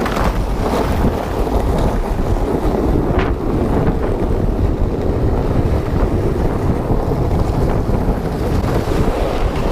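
Wind buffeting the microphone in a steady, loud rush with a deep rumble underneath.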